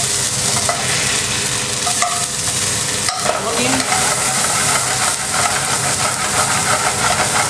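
Garlic sizzling and frying in hot ghee in an aluminium frying pan over a gas flame, with a long-handled spoon stirring it around the pan. A steady, loud hiss.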